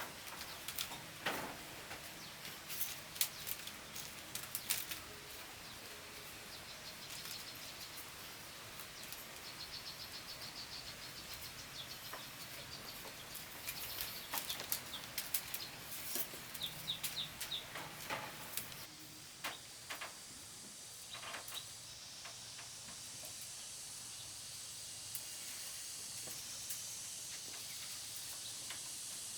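Forest ambience: birds chirping among scattered sharp clicks and knocks, then, from about two-thirds of the way in, a steady high insect drone that grows slowly louder.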